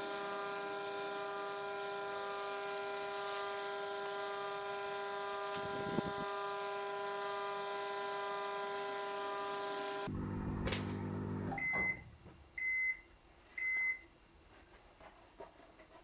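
Lumina microwave oven running with a steady electrical hum that cuts off about ten seconds in, followed by three short high-pitched beeps about a second apart: the end-of-cycle signal that the cooking timer has finished.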